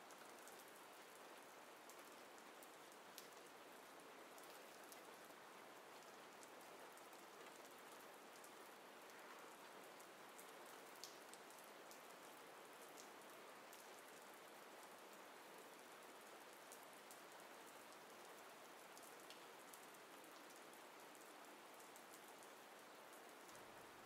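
Near silence: a faint steady hiss of room tone, with a few tiny scattered ticks.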